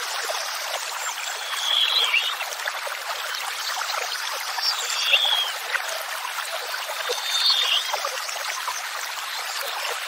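Steady rush of flowing water, with a songbird singing three short phrases a few seconds apart.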